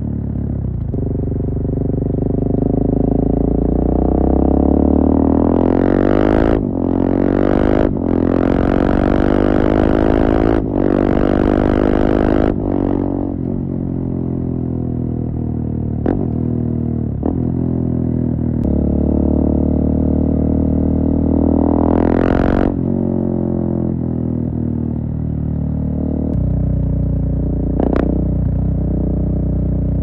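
2017 KTM 690 Duke's single-cylinder engine through a full Akrapovic exhaust with a GPR decat link pipe, on the move. It pulls up through the gears several times, each rise in pitch cut off sharply at the shift, with steadier running between the pulls.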